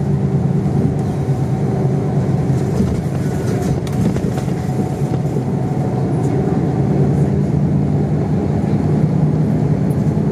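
Route bus engine running steadily with road noise while the bus drives, heard from inside the passenger cabin.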